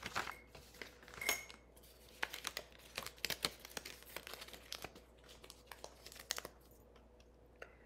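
Paper and plastic craft-kit pieces being handled and sorted, with soft crinkling rustles and scattered light taps and clicks that thin out toward the end.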